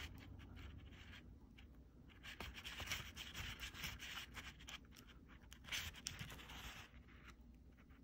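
Faint rubbing and scratching of fingers turning a watch's city-ring crown, in several short irregular spells with a few small clicks.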